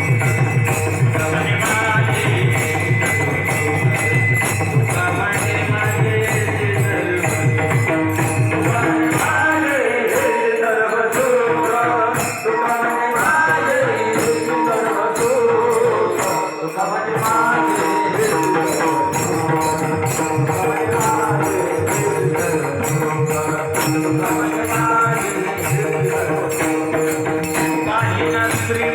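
Marathi Varkari bhajan music: small hand cymbals beaten in a steady rhythm over a held drone and a drum. A singer's melody comes in about a third of the way through, while the drum drops back for a few seconds.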